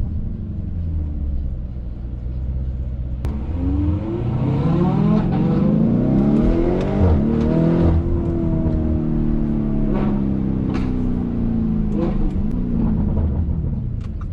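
Lamborghini Urus twin-turbo V8 accelerating. The engine note climbs for a few seconds, breaks at a gear change near the middle, then runs on steadily with its pitch slowly falling.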